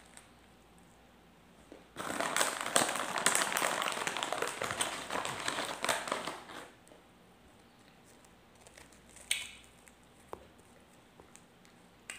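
Crackling crunch of a crusty bread roll being bitten and chewed, dense and loud for about five seconds starting about two seconds in, with one short crackle later.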